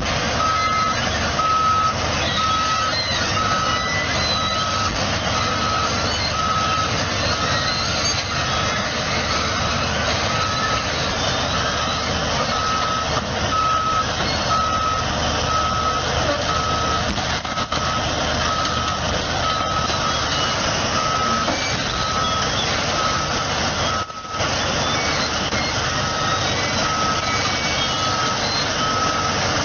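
A heavy vehicle's reversing alarm beeping at an even, steady pace, one pitch, over the continuous noise of the machine working.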